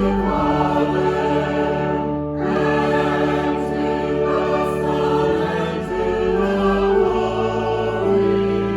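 Choir singing a sacred choral piece in long held chords, with a short break about two seconds in.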